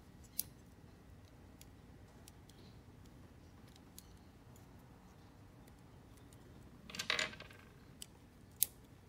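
Small snap-fit plastic kit parts of a Super Minipla Voltron lion being handled and pushed together: a few faint separate clicks, with a short burst of louder plastic clicking and clattering about seven seconds in.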